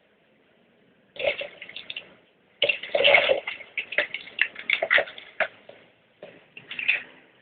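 Packaging being handled during an unboxing: irregular crinkling and rustling, heaviest in the middle, with a short lull near the start.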